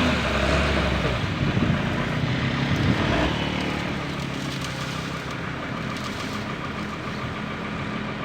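Heavy diesel engine running. A loud low engine note drops away about a second in, leaving the engine running more steadily and quietly.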